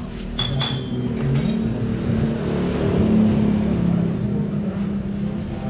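A motor vehicle engine running steadily in the background, its pitch rising a little around halfway. A couple of sharp clicks come about half a second in.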